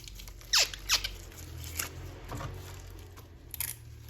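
Two short squeaks, each falling steeply in pitch, about half a second and a second in, then a brief scrape a little after three and a half seconds, over a steady low hum.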